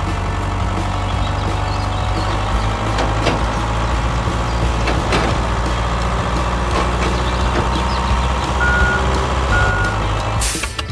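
A heavy vehicle's engine running steadily, with two short high beeps near the end; the sound cuts off suddenly just before the end.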